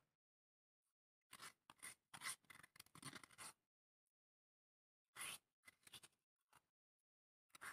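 Fingers scraping crushed fruit around a stone mortar and onto a plate: a dry, scratchy scraping in bouts, one lasting about two seconds, then a shorter one, with another starting near the end and silence in between.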